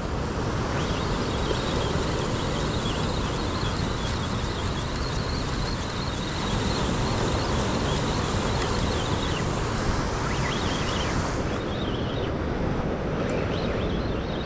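Wind buffeting the microphone over surf breaking along a rocky shore, a steady rushing noise.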